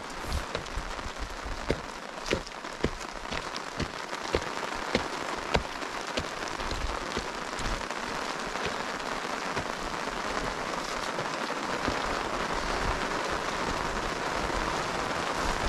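Rain falling on a tarp shelter overhead: a steady hiss with scattered sharp drop taps in the first half, the hiss growing a little louder toward the end.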